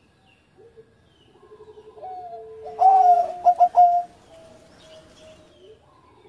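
Zebra dove (perkutut) cooing: a phrase of low coos, with a loud rising note about three seconds in followed by a few quick pulsed coos, then softer trailing notes.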